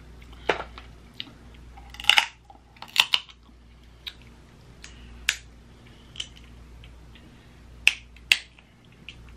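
Cooked shrimp and crab shells cracking and snapping as they are peeled apart by hand: a run of short, sharp crackles, the loudest about two and three seconds in and a quick pair near the end.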